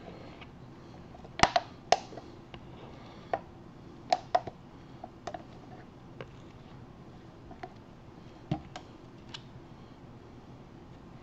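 Irregular light clicks and taps of plastic mixing cups and a stir stick knocking against the silicone mold and other cups while resin is poured and scraped out. The two loudest taps come about one and a half and two seconds in.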